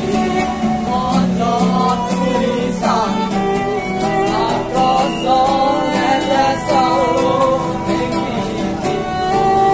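Violin playing a melody, sliding between some notes, over a strummed acoustic guitar.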